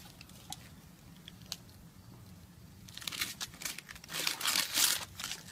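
Tape being peeled off a sculpture and wadded up. A few faint ticks come first, then a run of rough tearing, crinkling bursts from about halfway through, loudest near the end.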